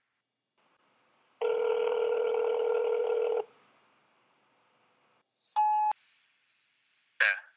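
Mobile phone ringback tone: one ring of about two seconds, the call ringing unanswered. A short electronic beep follows about two seconds later, and a brief sharp sound comes near the end.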